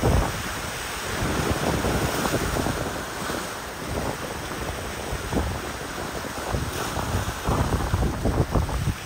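Wind gusting against the microphone in uneven low rumbles, over a steady wash of choppy inlet water.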